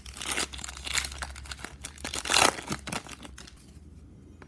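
Foil wrapper of a 2007-08 ITG Between the Pipes hockey card pack crinkling and rustling as it is opened and handled. The rustling is loudest about two and a half seconds in and dies down near the end.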